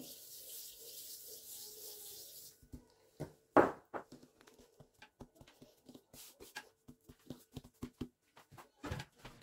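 A hand rubbing and spreading dry flour across a worktop, a steady soft hissing rub for about two and a half seconds, then scattered light taps and knocks as the dough ball is handled and set down on the floured surface.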